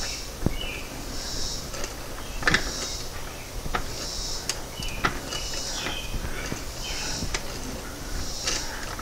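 Scattered sharp metal clicks and clinks of tools and parts being handled on a VW 020 manual transmission during reassembly. Behind them is a chorus of chirping insects that swells about every second and a half.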